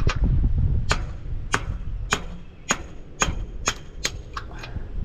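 A hammer striking steel about ten times, roughly two blows a second, each with a short metallic ring. The blows are an attempt to drive out the pivot pin of a crane's broken hydraulic ram.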